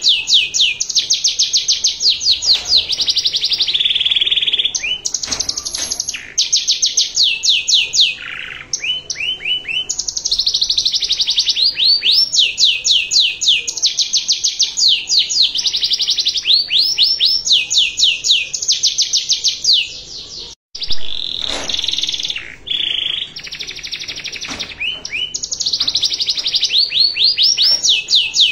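Domestic canary singing a long, fast song in the ornate 'cengkok mewah' style, made of rolling trills of high notes repeated many times a second. There is a short break about two-thirds of the way through.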